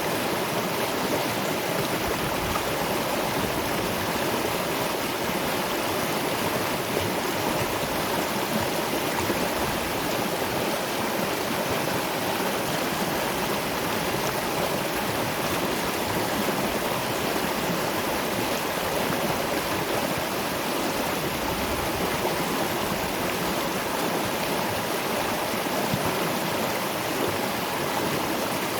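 Waterfall and river water rushing in a steady, even noise with no breaks or separate events.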